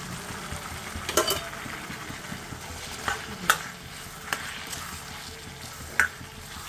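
Metal spatula stirring crumbled paneer into sizzling masala gravy in a kadhai. A steady sizzle runs under about five sharp clinks of the spatula against the pan.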